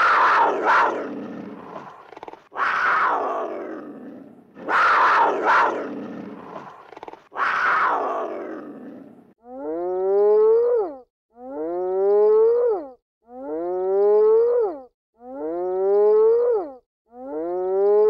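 Animal calls: four harsh, roaring cries about two and a half seconds apart, each fading away. Then five identical pitched calls that rise and drop off sharply, repeated about every two seconds.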